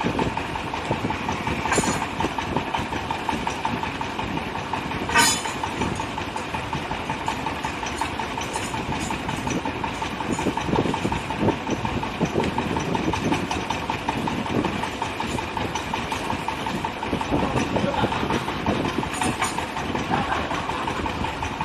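Compressed-air well-drilling rig running: a steady mechanical din with fast rhythmic hammering and a steady tone. Two brief sharp bursts come about 2 and 5 seconds in.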